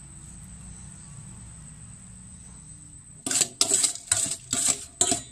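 Metal spoon stirring and scraping around a stainless steel mixing bowl of liquid salad dressing. About five quick strokes come in the last two seconds, after a quiet start.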